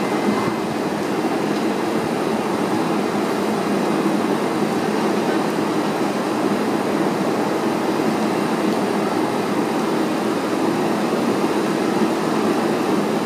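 R142A/R188 subway train standing at the platform with its doors open, its onboard equipment running with a steady, even rushing noise.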